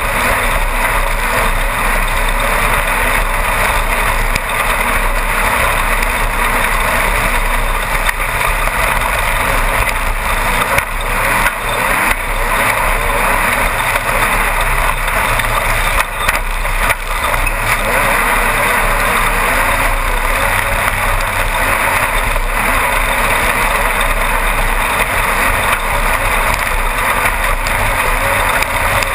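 Class 1-1600 desert race buggy's air-cooled VW 1600 flat-four engine running hard, heard from inside the cockpit together with steady loud road and chassis noise. A few sharp knocks from the rough course come near the middle.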